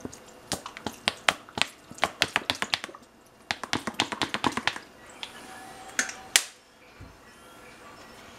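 Soy sauce glugging out of a bottle as it is poured: quick runs of sharp clicks, breaking off about three seconds in, picking up again, then a few louder clicks near six seconds.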